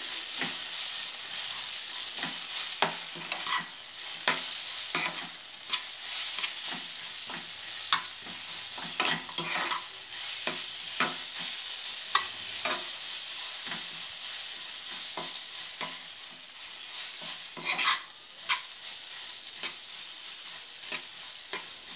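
Elephant apple pieces sizzling in oil and fried spice paste in a nonstick pan, over a steady hiss. A plastic spatula scrapes and knocks against the pan at an irregular pace as they are stirred.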